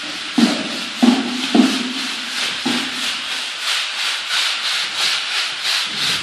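Rhythmic scraping of plastering work, a hand tool rubbing back and forth over a plastered wall at about three strokes a second. A few heavier knocks come in the first two or three seconds.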